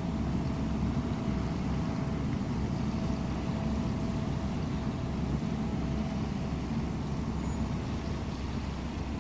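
Steady low rumble of the cruise ship Ambience's engines and machinery as it gets under way, with a faint steady whine over it that stops about seven seconds in.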